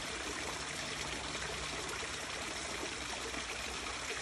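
Water trickling steadily from an overhanging bank into a small stream pool, a constant gentle splashing and dribbling.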